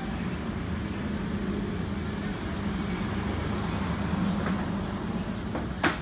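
Steady low engine hum of road traffic with general street noise, and one sharp click just before the end.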